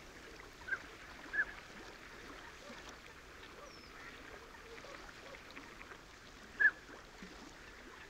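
Faint calls of waterfowl on a lagoon: three short calls, about a second in, again half a second later and near the end, with softer calls in between.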